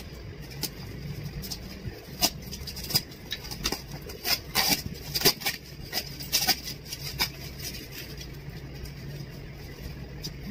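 Plastic packaging crinkling and crackling in irregular snaps as a wrapped item is handled and unwrapped inside a cardboard box, busiest a couple of seconds in and easing off near the end. A steady low hum runs underneath.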